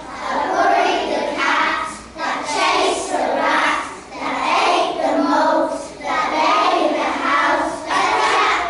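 A group of young children singing a rhyme together in unison, in regular phrases with a short break about every two seconds.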